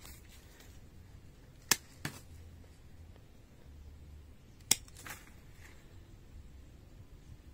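Pruning shears snipping twigs off a jaboticaba bonsai: two pairs of short, sharp snips about three seconds apart.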